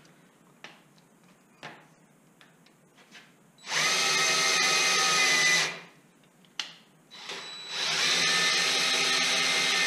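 DeWalt cordless drill/driver running at a steady speed in two runs of about two seconds each. It is turning the knee crank shaft of an Excello 602 knee mill through a 3D-printed 3/8-inch-drive adapter. A few light clicks of the tool being fitted come before and between the runs.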